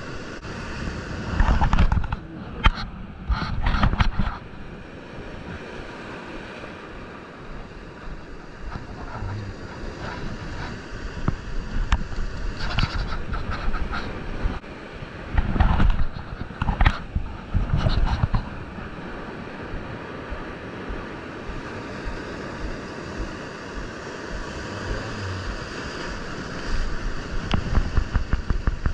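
Waves breaking and washing over shore rocks, with wind buffeting the microphone. Louder surges come about two to four seconds in and again around sixteen to eighteen seconds in.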